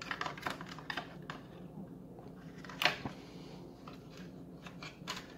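Small plastic clicks, taps and scrapes as a circuit board is worked back into a Bluetooth speaker's plastic housing, with one sharper click nearly three seconds in.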